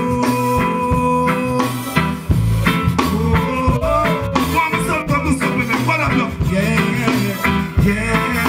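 Live reggae music from a stage band, loud and steady, with a man singing into a microphone over it from about the middle on.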